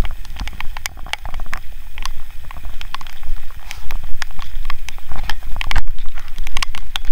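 Strong wind buffeting the microphone in the rain, a constant low rumble broken by many irregular crackling clicks.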